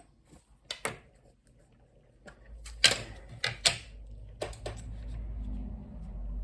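A series of sharp clicks and taps, small metal tools striking a phone's parts and the work surface during disassembly. Several come in quick pairs, with the loudest about three seconds in. A low hum builds from about halfway.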